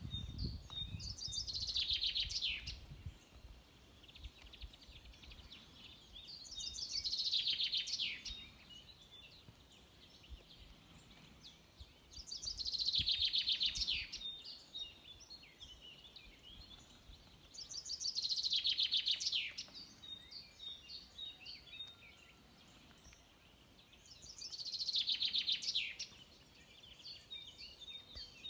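A songbird singing the same short phrase, a falling trill, five times, each about two seconds long and about six seconds apart, with fainter chirps from other birds in between.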